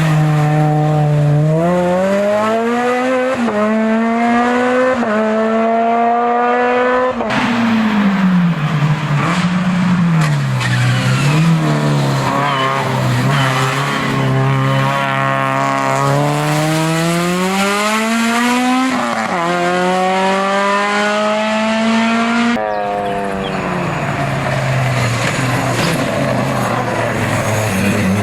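Racing cars' engines on a hill-climb course at high revs, pitch rising through each gear and dropping at the shifts, rising and falling again through the bends. The sound changes abruptly twice, about seven seconds in and near the end, as different cars take over.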